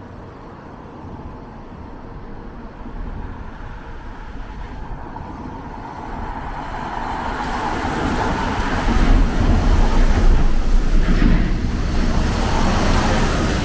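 Road traffic driving past on wet tarmac: a few cars, then a heavy flatbed truck. Tyre noise on the wet road and engine rumble grow louder from about halfway through and are loudest a little before the end.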